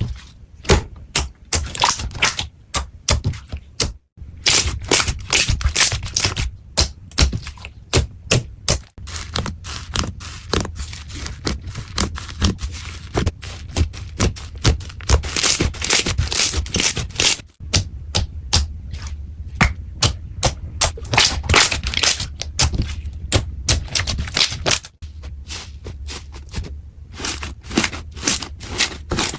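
Slime being squeezed and pressed by hand, giving rapid sharp clicks, pops and crackles, in several short cut-together clips.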